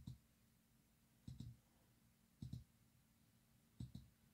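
Near silence broken by faint pairs of quick clicks, four times, each pair about 1.3 seconds after the last.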